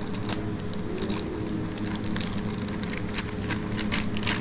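Plastic flour packet crinkling and crackling in the hands as it is squeezed and tipped out, with many short sharp crackles, over a steady low hum.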